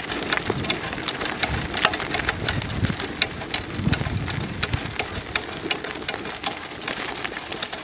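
Dog-drawn Chalo sulky rolling over a rough dirt trail: its wheels and frame rattle and clatter in a dense, irregular run of clicks and knocks over a low rumble.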